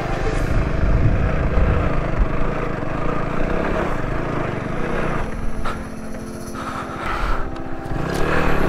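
A TVS Apache RTR motorcycle's single-cylinder engine pulling at low speed up a loose, stony dirt track. About five seconds in it drops to a low, even beat as the bike slows to a stop.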